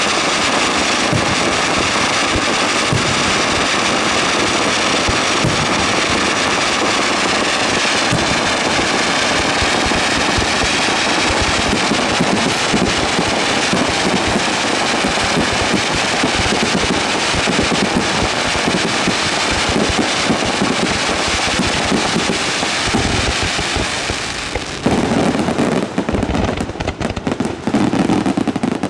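Fireworks finale: a dense, unbroken crackle of many ground-level mines and aerial shells firing at once, turning into heavier, more uneven booms near the end.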